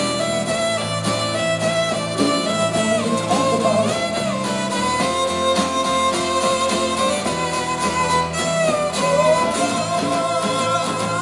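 Live band playing an instrumental passage with no vocals: a fiddle carries the melody with sliding notes over strummed acoustic guitars and bass.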